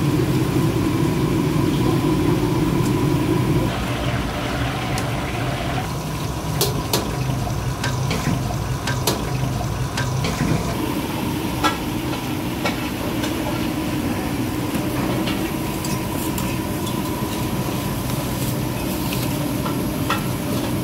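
Busy food-stall kitchen noise: a steady low hum, with sharp clinks of metal utensils against steel trays, most of them in the middle.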